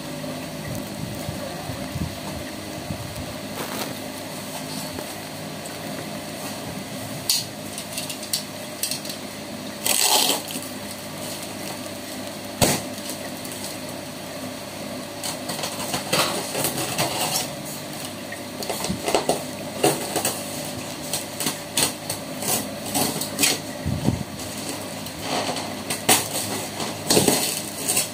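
A knife blade cutting and scraping along packing tape on cardboard boxes, with short scrapes and knocks that come more often in the second half, over a steady low hum.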